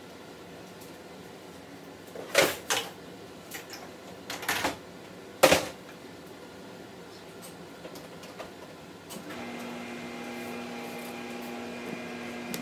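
Several clunks like an appliance door and racks being handled, then a dishwasher starts running about nine seconds in with a steady hum.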